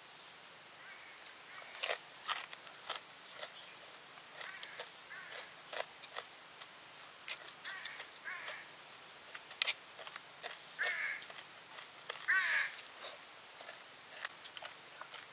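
Crisp clicks and crunches of deep-fried snake and cucumber being eaten, with several short bird calls between them, the loudest about twelve seconds in.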